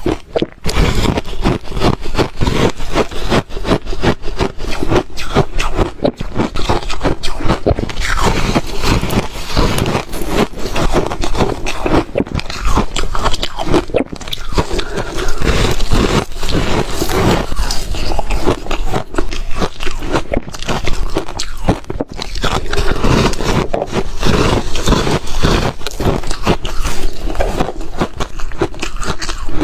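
Close-miked chewing of reshaved refrigerator ice: a dense, continuous run of crunches and scraping crackles.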